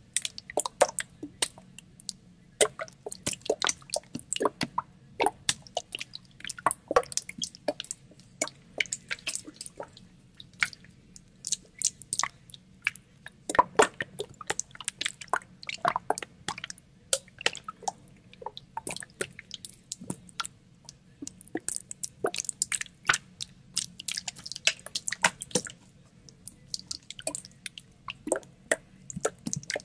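Water sloshing and splashing inside a plastic water bottle being shaken, a dense, irregular run of splashes and sharp clicks.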